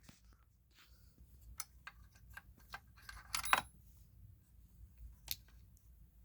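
Faint scattered clicks and light handling noises, with a louder click about three and a half seconds in and another about five seconds in.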